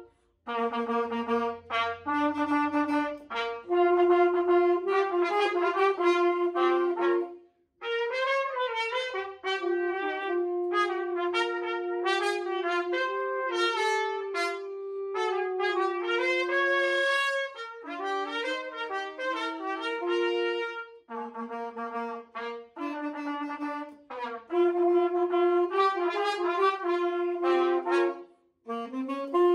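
An alto saxophone and two trumpets playing an old popular tune together, phrase by phrase, with brief full stops between phrases near the start, about seven seconds in, and just before the end.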